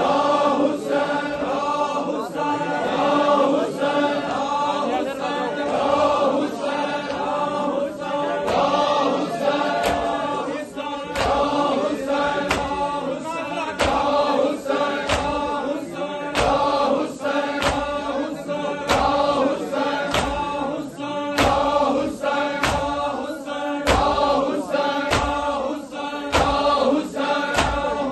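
A crowd of men chanting a Muharram noha, with sharp rhythmic strikes of chest-beating (matam) about every two-thirds of a second, most distinct from about a third of the way in.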